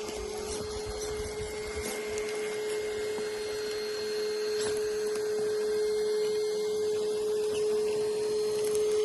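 HB R1001 RC rock crawler's electric drivetrain whining while crawling: one steady tone that slowly grows louder, with a few light clicks.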